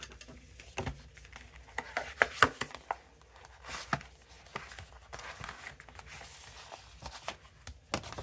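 Cardstock folders and paper photo inserts of an album package rustling and sliding as they are pulled out by hand, with scattered taps and scrapes; the loudest handling comes about two and a half seconds in.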